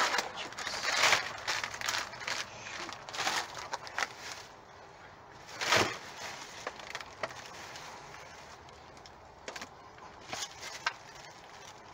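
Plastic food packaging crinkling and rustling as it is handled and set into a cardboard box, with louder bursts about a second in and just before six seconds, then scattered light clicks and taps.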